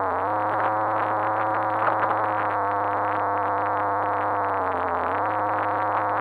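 RC car's motor running at a steady high pitch, dipping briefly about five seconds in, then picking up again. Muffled, as heard from a fully enclosed action cam mounted on the car.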